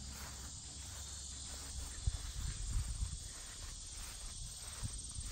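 Steady high-pitched insect chorus, which is taken for cicadas. A few low thumps come about two to three seconds in.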